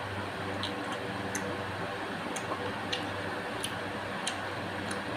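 Mouth chewing a soft fruit chew candy, with small wet clicks about every two-thirds of a second at a slightly uneven pace, over a steady background hiss.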